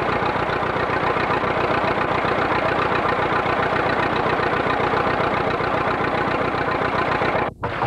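Vintage tractor engine idling with a steady, even beat. It cuts off abruptly near the end.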